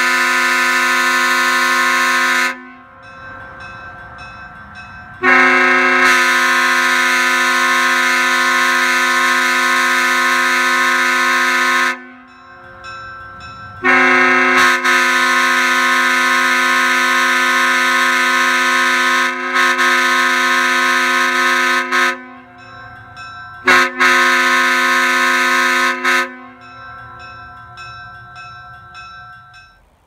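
Leslie S3P (S3C) three-chime air train horn, bells 25, 37 and 55 with bronze Tabby power chambers, sounding its unusual, odd chord in a series of long blasts separated by short pauses. There are four long blasts, the third dipping briefly twice, and a short toot just before the last one; a faint trace of the chord lingers in each pause.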